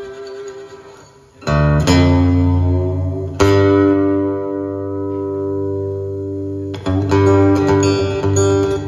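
Steel-string acoustic guitar played fingerstyle. After a soft, fading passage, a low chord is struck about a second and a half in, and another about three and a half seconds in is left ringing for about three seconds. Quick picking resumes near the end.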